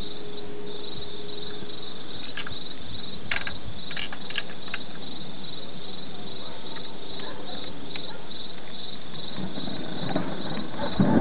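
Steady hiss of falling rain with a cricket chirping in a fast, even rhythm. Near the end a louder low rumble swells up.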